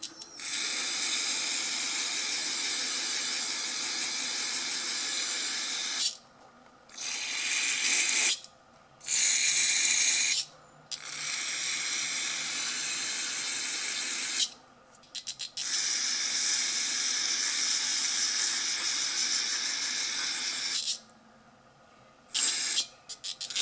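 Pressurised spray hissing in long, even bursts on a dirty small-engine carburetor during cleaning. The first burst lasts about six seconds, then several shorter ones follow, with a short spurt near the end.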